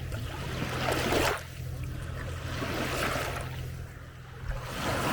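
Small lake waves lapping and washing onto a beach, in surges: one about a second in that breaks off sharply, a softer one around three seconds, and another near the end, over a steady low rumble.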